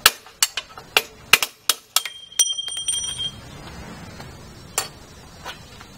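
Hammer striking a punch to drive a bottom bracket bearing cup out of a bicycle frame: about eight quick, sharp metal taps in the first two and a half seconds. One hit leaves a bell-like ring for about a second, and two lone taps follow later.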